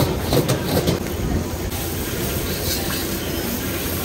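Metal ladle and spatula scraping and clanking against a wok while stir-frying rice, with a steady rushing noise from the gas burner and frying underneath. The clanking strokes come in a quick cluster during the first second, then ease off while the steady noise carries on.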